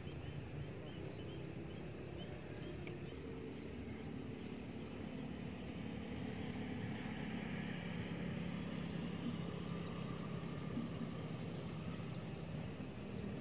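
Steady low hum of a running engine, a little louder from about six seconds in, over faint outdoor background noise.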